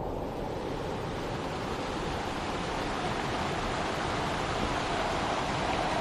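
Steady rush of water from a rocky mountain stream and waterfall.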